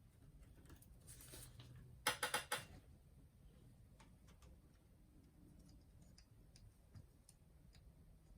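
Faint scattered ticks of small screws and a screwdriver being handled during disassembly, with a brief rattle of four quick clicks about two seconds in.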